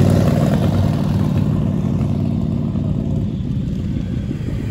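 A chopper motorcycle's engine passes close by, its low note fading steadily as the bike rides off down the road.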